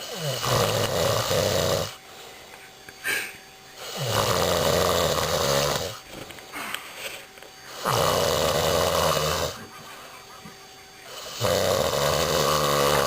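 Extremely loud snoring: four long snores about four seconds apart, each lasting a second and a half to two seconds and rising in pitch as it starts, with quieter breaths between.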